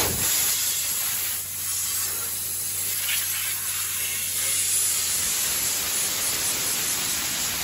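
Steady, loud hiss of pressurised hydraulic oil rushing through the valve manifold of a Skyjack SJ7127 scissor lift, over the faint hum of its idling engine.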